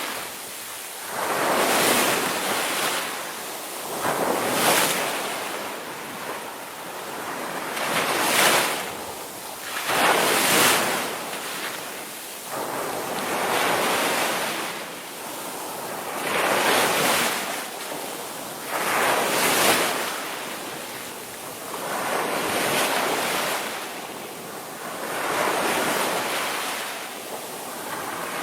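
Ocean surf: waves washing in one after another, a rushing swell every two to three seconds that rises and falls away.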